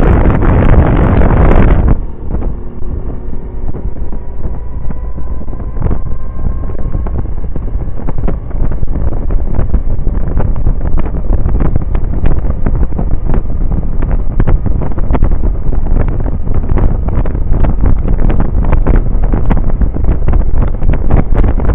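Wind buffeting the microphone of a Suzuki Burgman 650 maxi-scooter at road speed, with the scooter's engine running under it. About two seconds in the wind noise eases and a faint, slowly rising engine tone shows through; some seconds later the buffeting grows loud again and stays.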